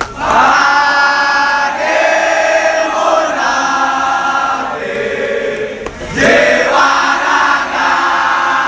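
A large crowd of football supporters singing a chant together, in long held phrases. The singing breaks off briefly about six seconds in and starts again louder.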